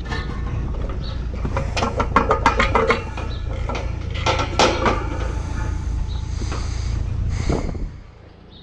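Metal tools clicking and knocking against the metal parts of an old condenser's fan assembly, in quick runs of clicks, over a steady low rumble that drops away near the end.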